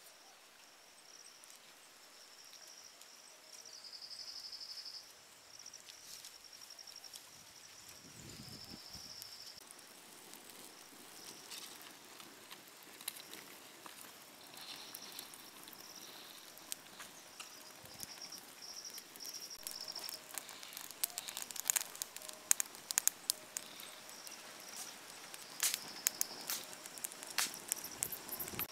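Wood campfire crackling with sharp pops, the pops getting thicker and louder in the second half, over insects chirping steadily.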